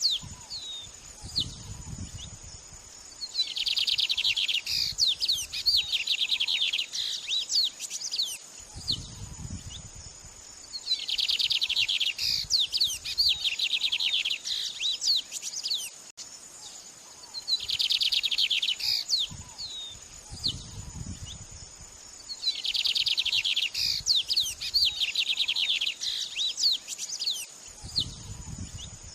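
A songbird singing in repeated bouts of fast chirps and trills, one every several seconds, over a steady high insect-like whine. A short low sound comes four times.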